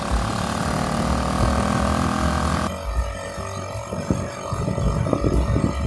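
Small engine of a homemade mini utility cart running steadily as it drives along. About three seconds in the sound cuts abruptly to background music with a beat, the engine still faintly underneath.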